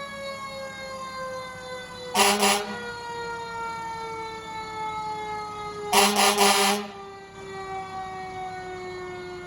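A fire apparatus mechanical siren winding down, its pitch falling slowly and steadily. Over it, fire-truck air horns give a short blast about two seconds in and a longer, stuttering blast around six seconds in.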